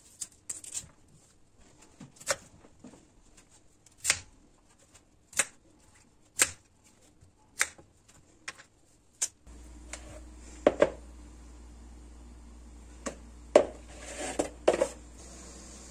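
Knife cutting cauliflower into florets on a bamboo cutting board, the blade knocking sharply against the board about once a second. Partway through a steady low hum comes in, and a few louder knocks and rattles follow as the florets are handled and a plastic colander is set on the board.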